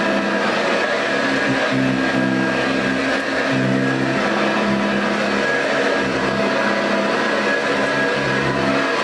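1986 Eureka self-propelled upright vacuum cleaner, a fan-first machine, running on carpet with a steady motor and fan whine. Its lower hum swells and drops every second or so.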